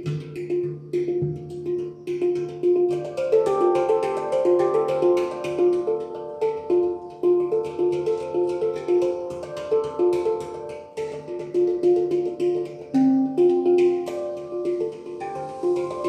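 Handpan played by hand: ringing struck notes over a low bass note sounded at the start and left to ring. The melody grows quicker and denser after a few seconds.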